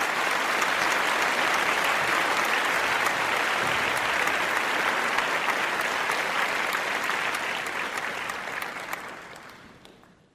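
Crowd applause: many people clapping steadily, then tapering off and fading out near the end.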